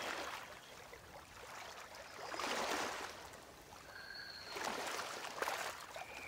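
A person breathing slowly and audibly, with two long breaths about two seconds apart, during a yoga pose.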